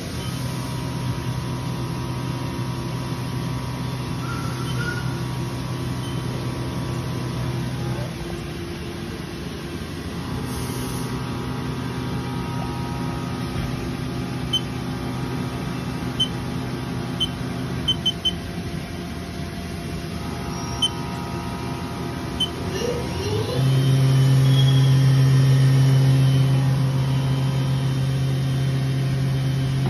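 Haas VM-3 CNC vertical mill spindle running with a steady hum. It stops and restarts twice, then about 23 seconds in ramps up to a higher, louder speed. Short keypad beeps sound from the control panel midway.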